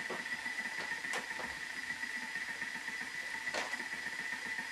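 Thermomix food processor running at low speed while it heats, giving a steady motor whine, with two light knocks about a second in and again about two and a half seconds later.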